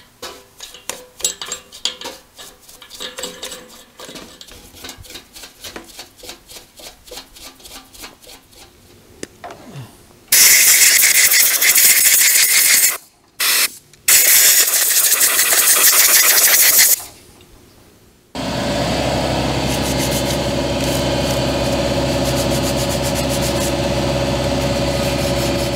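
A stiff brush scrubbing an electric motor's rotor in a pan of thinner, in quick repeated strokes. About ten seconds in, a compressed-air blow gun blasts the rotor dry with a loud hiss that is cut off briefly and then resumes. From about eighteen seconds in, a steady mechanical hum holds to the end.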